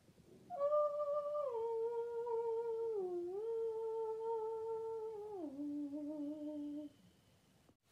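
A person humming a slow tune of a few long held notes that step downward, with a brief dip in the middle, ending on the lowest note about a second before the end.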